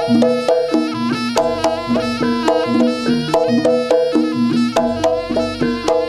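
Jaranan (kuda lumping) gamelan music: percussion and pitched instruments playing a fast, repeating melody with a steady beat.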